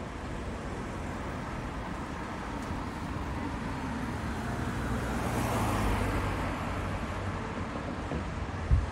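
Street traffic noise: a steady wash of road traffic, with one vehicle passing and swelling loudest about six seconds in.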